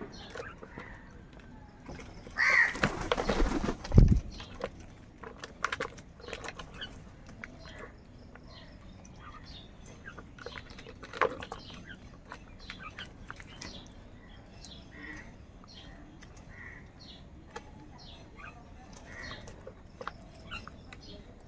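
House crows cawing now and then, with many small clicks and taps as beaks pick at food in a plastic bowl. A loud flurry with a caw about two and a half seconds in ends in a low thump about four seconds in.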